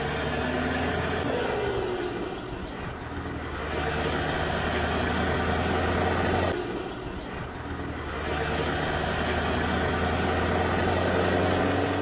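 Edited heavy-truck sound effects: a steady diesel engine drone under rising and falling whooshes like a passing truck. The sound changes abruptly about a second in and again about halfway.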